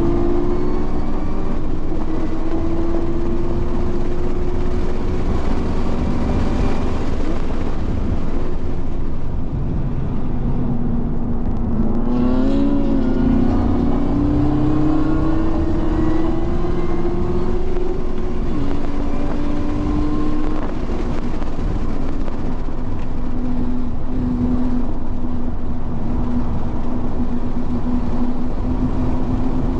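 Car engine heard from inside the car while lapping a race track under hard acceleration. Its pitch climbs slowly through each gear and drops sharply at the shifts, with a quick throttle blip about twelve seconds in, over steady road and wind noise.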